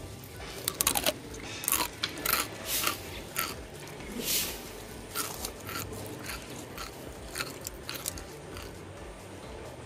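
Chips being bitten and chewed close to the microphone: an irregular run of sharp, crisp crunches that dies down near the end.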